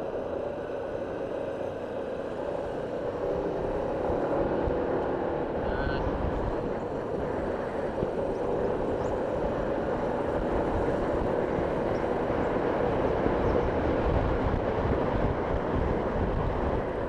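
Motorcycle riding at steady speed, heard from on the bike: a continuous rush of engine and wind, getting a little louder a few seconds in.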